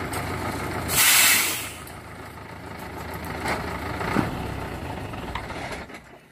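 Materials delivery truck's engine running, with a short loud hiss about a second in.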